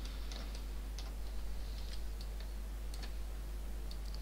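Scattered single clicks of a computer mouse and keyboard, about eight or nine spread irregularly, over a steady low hum.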